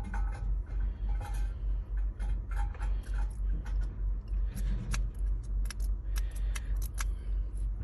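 Scattered small metallic clicks and taps from a removed ignition lock cylinder being handled, over a steady low rumble that pulses two or three times a second.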